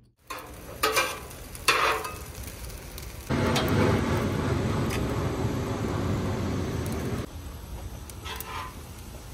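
Fried rice and meat sizzling on a gas flat-top griddle, cooked hibachi-style, with a few clinks of metal utensils in the first two seconds. The sizzle jumps louder about three seconds in and drops back about seven seconds in.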